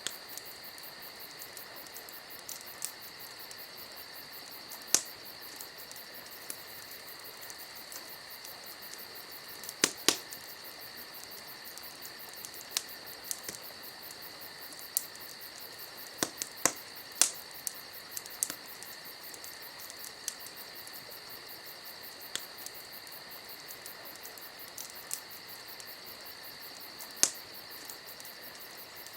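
Campfire crackling with scattered sharp pops, a cluster of them around the middle, over a steady chorus of crickets.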